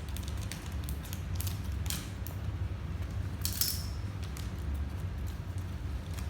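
Paper-craft handling sounds: scattered light clicks and taps, and one brief sharp scrape or tear about three and a half seconds in, over a steady low hum.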